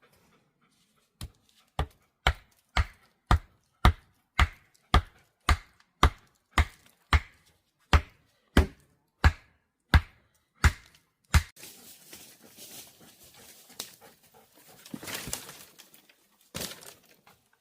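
A steady run of about eighteen sharp chopping blows, roughly two a second, spacing out slightly toward the end. Then a few seconds of rustling and scraping, and one more knock near the end.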